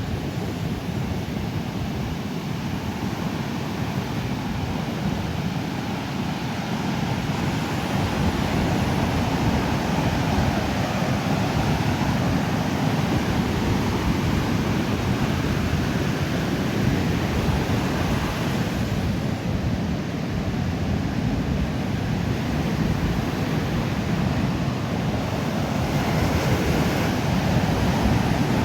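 Pacific surf breaking and washing on a sandy beach, a continuous rushing wash that swells louder a few times, with low wind rumble on the microphone.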